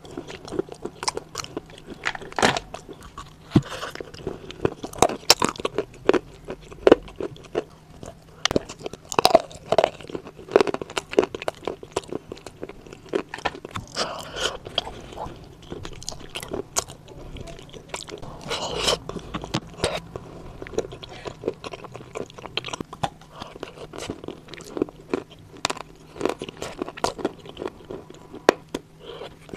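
Biting and chewing lumps of dried grey clay coated in wet clay slurry: dense crunching with sharp, irregular crunches throughout, mixed with wetter chewing.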